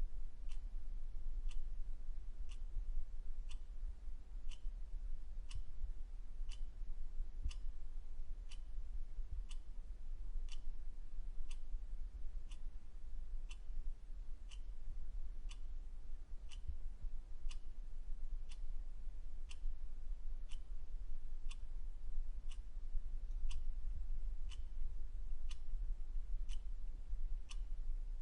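Clock ticking steadily, about one tick a second, over a constant low hum.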